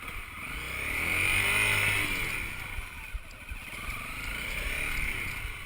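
Motorcycle engine revving up and falling back twice as the bike struggles for grip in mud.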